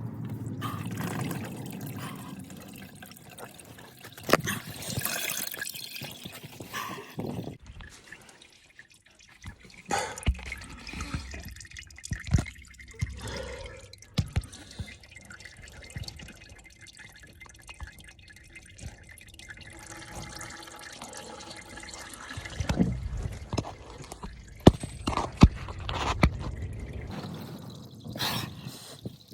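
Motor oil dripping and pouring into a drain pan while the old oil drains out, with scattered clinks and knocks throughout.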